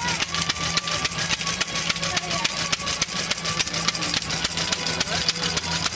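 Single-cylinder engine of an early Torpedo veteran motorcycle running at idle, an even, rapid beat of firing strokes.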